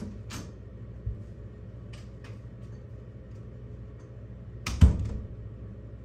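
Handling noises: a few light taps and one louder knock a little before five seconds in, over a steady low hum.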